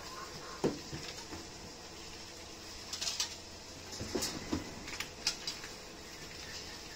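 A few scattered light knocks and rattles, one about half a second in and a cluster in the middle, as a baby monkey clambers on a hanging rubber tyre swing and a rope ladder with wooden rungs.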